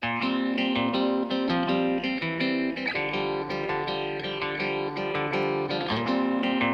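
Upbeat background music led by a plucked guitar, starting abruptly after a moment of silence.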